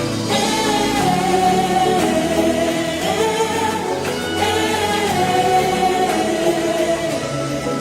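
Gospel song with a lead singer and choir over a full band.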